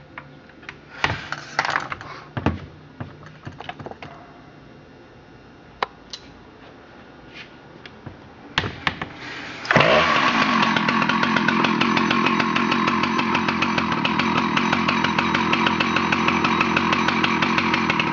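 Husqvarna 2100 XP two-stroke chainsaw being started: a few clicks and knocks, then the engine catches about ten seconds in and runs steadily.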